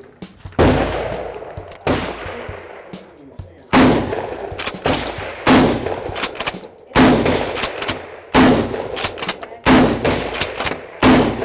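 12-gauge Mossberg 500 pump shotgun fitted with a Black Aces Tactical Pro Series 5 magazine-fed kit firing a string of about eight shots from a Saiga 12 box magazine, roughly one every second and a half, each a sharp report with a trailing echo.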